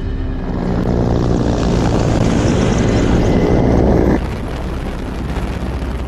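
Helicopter engine and rotor noise, loud and steady. About four seconds in it cuts off abruptly and gives way to a quieter, lower drone.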